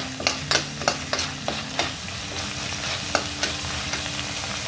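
Chopped garlic sizzling in hot oil in a wok while a spatula stirs and scrapes it; several quick spatula strokes in the first two seconds, then a steady sizzle.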